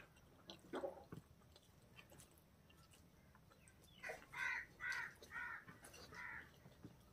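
A crow cawing, about five caws in a row starting about four seconds in. Before them, faint sounds of eating with the hand and chewing.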